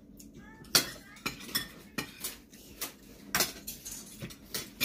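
Metal spoons and forks clinking and scraping against plates while eating, in irregular sharp clinks; the loudest comes about a second in.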